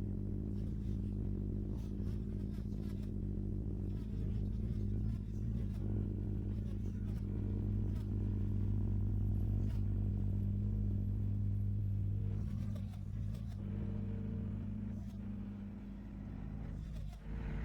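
Excavator's diesel engine running steadily as the machine works, with an even low drone that swells a little partway through and eases near the end, and a few faint knocks.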